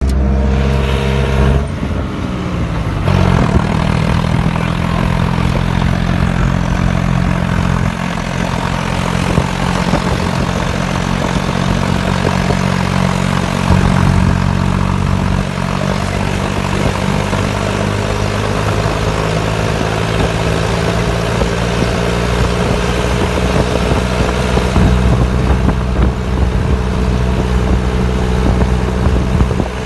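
Tractor engine running steadily while driving along a dirt track, heard up close from on board. Its note shifts about two to three seconds in, then holds steady.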